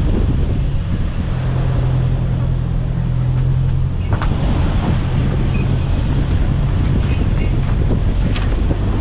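Car being driven: a steady low engine drone and road rumble with wind noise over it, and a few faint clicks.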